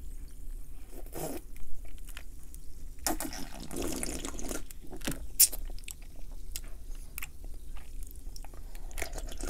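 Close-miked drinking of Diet Dr Pepper from a glass: sips and swallows, with a longer draw around the middle and scattered small clicks of the mouth and glass.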